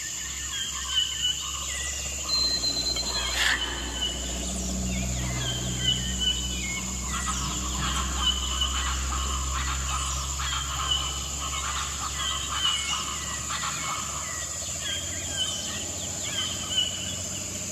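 Birds chirping, a short call repeated about once a second, over a steady high-pitched insect drone, like a jungle or countryside ambience.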